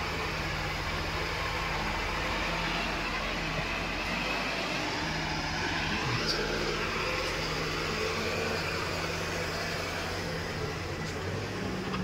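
Diesel engines of an Escorts Digmax backhoe loader and a farm tractor running together as the loader works, with a steady low drone. The engine note shifts about five seconds in.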